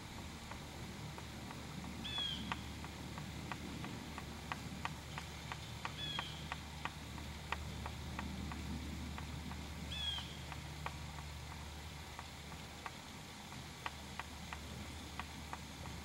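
A bird calling three times, each a short falling note, about four seconds apart, over many light, irregular ticks and a steady low hum.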